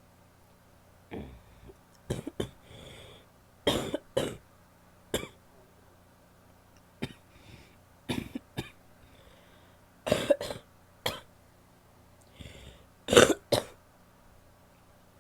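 A woman's wet coughing in a run of short fits of two or three coughs each, with breaths drawn in between. The hardest coughs come near the end.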